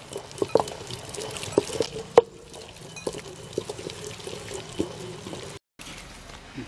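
Stone wet grinder (aattukal) in use: the stone pestle turned by hand in the stone mortar, grinding wet spice paste, with irregular stone knocks and wet squishing of the paste. The sound cuts out briefly near the end.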